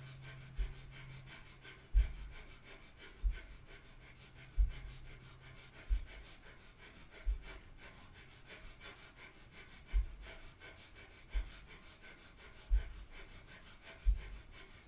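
Breath of fire: rapid, rhythmic, forceful breathing through the nose, short sharp exhales in quick succession. A soft low thud comes about every second and a half.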